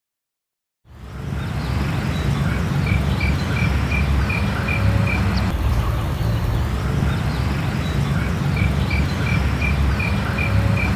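Outdoor ambience: a steady low rumble, with a small creature's short high call repeated about three times a second in two runs of roughly eight notes, the first about three seconds in and the second near the end. The sound starts abruptly about a second in, after a moment of silence.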